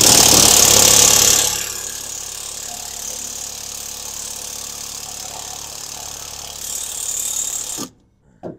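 Cordless 20 V impact wrench hammering on a rusted exhaust manifold bolt. It is loudest for the first second and a half, runs steadier and quieter, picks up again near the end and stops suddenly about eight seconds in.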